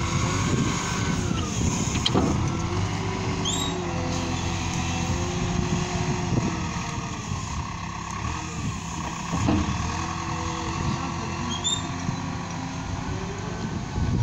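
Liebherr L554 wheel loader running steadily as it works its bucket, with a whine that rises and falls in pitch over the engine note and a few sharp knocks of the bucket and stones.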